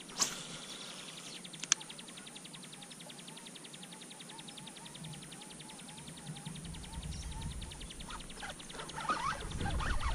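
A baitcasting reel being wound in, a fast, even ticking that fades out about six seconds in, after a couple of sharp clicks at the start. Near the end, louder knocking and handling noise as a piranha pulls on the bent rod.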